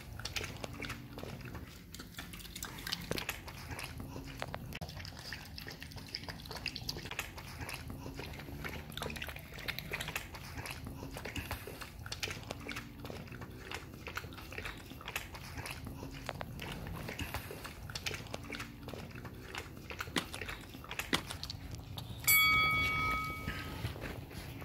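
A Biewer Terrier and a Shih Tzu lapping chicken broth from ceramic saucers, a steady run of small wet licking clicks. Near the end a single bright ringing tone starts suddenly and fades over about a second.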